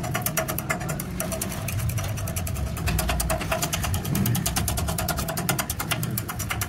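Stick (shielded metal arc) welding: rapid, even crackling clicks, about a dozen a second, over a steady low hum.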